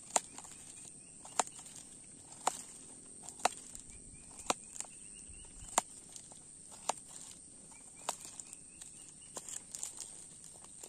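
Small knife cutting a vegetable into cubes over a plastic cutting board: a sharp knock about once a second as the blade comes through onto the board, with quicker, lighter taps near the end.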